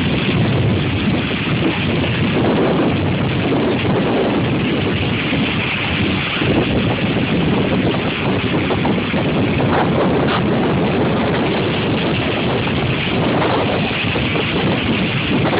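Hurricane-force wind buffeting a phone's microphone: a loud, continuous rush of noise that swells and eases with the gusts.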